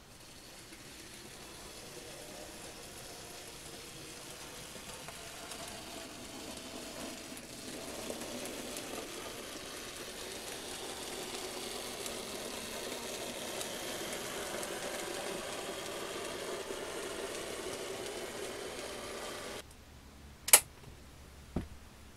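Model trains running on the layout's track: a steady whirr and rolling rattle of motor and wheels on rail that grows slowly louder, then cuts off abruptly. Two sharp clicks follow about a second apart, the first the louder, as the model semaphore signal is switched.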